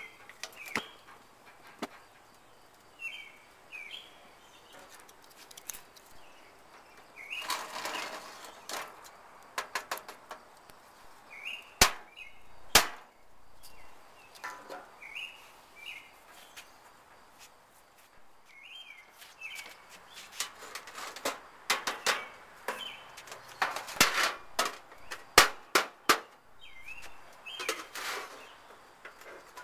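Small birds chirping on and off, with scattered sharp clicks and metallic knocks, the loudest cluster a few seconds before the end, as the sheet-metal charcloth tin is handled with a wire tool.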